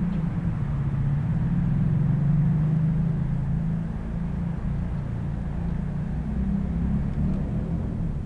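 Motor traffic running past, a steady low engine sound that swells about two seconds in and eases off after about four seconds.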